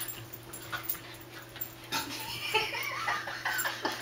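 Two small dogs play-fighting, with high, wavering dog vocalizations starting about halfway through, over faint scuffling clicks.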